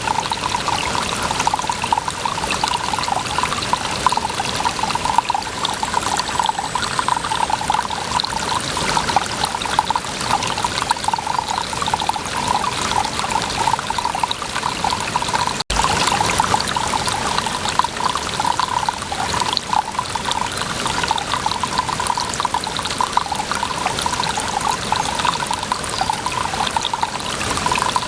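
Water running and trickling steadily, with a momentary break about halfway through.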